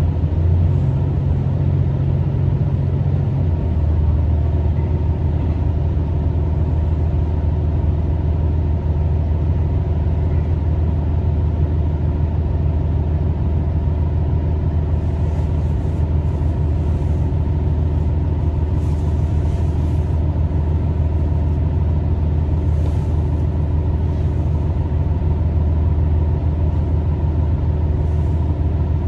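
Tosa Kuroshio Railway 9640 series diesel railcar heard from inside the passenger cabin while running: a steady low drone from its diesel engine, with wheel-on-rail running noise. The engine note shifts slightly about three seconds in.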